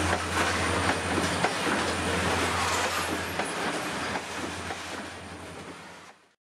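Ore train's steel gondola wagons rolling past, wheels clicking over the rail joints over a steady low drone. The sound fades in the last second or so and cuts off just before the end.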